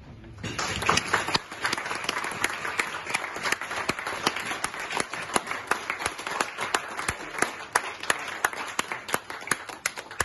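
A room of people applauding: the clapping starts suddenly about half a second in and keeps up steadily, with single sharp hand claps standing out from the general patter.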